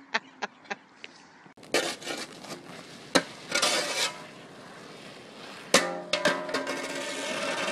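A few last bursts of laughter, then a metal snow shovel scraping over an icy asphalt driveway. Just before six seconds in there is a sharp clatter as the shoveller slips and falls and the shovel hits the pavement.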